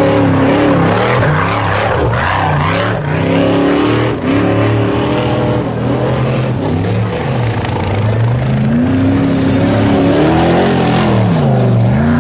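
Trophy Truck Spec off-road race trucks passing at speed on a dirt course, their engines revving so the pitch rises and falls over and over as they accelerate and lift. One truck passes at the start and another comes through near the end.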